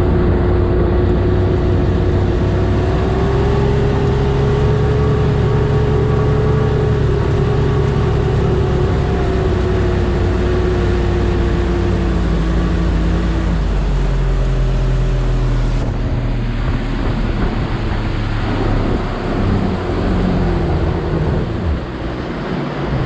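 1999 Evinrude FICHT 150 direct-injection two-stroke outboard running at speed, a steady engine tone over rushing hull and wind noise. The engine pitch drops away about two-thirds of the way through as it is throttled back, leaving mostly water and wind noise.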